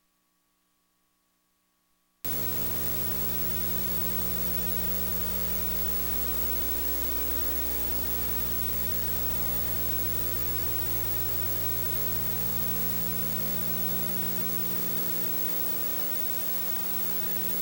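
Steady static hiss with a low electrical hum, as from a blank stretch of videotape, switching on abruptly about two seconds in after near silence.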